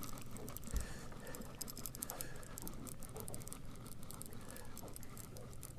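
Fishing reel being cranked to bring in a small hooked catfish: faint, rapid, irregular clicking and scratching, with one dull thump about a second in.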